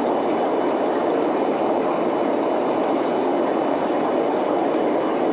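Aquarium water bubbling and rushing: a steady, even bubbling hiss that does not change.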